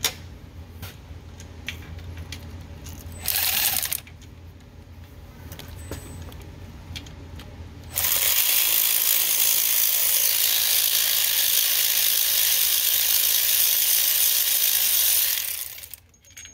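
Cordless power ratchet running a transmission bolt out: a short run about three seconds in, then a long steady run of about seven seconds that stops suddenly. Faint clicks of hand tools come before.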